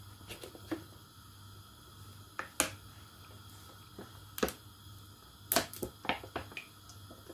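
A plastic bottle of cooking oil being handled and poured into a non-stick pan: scattered short, sharp clicks and ticks, about ten of them, most bunched in the second half.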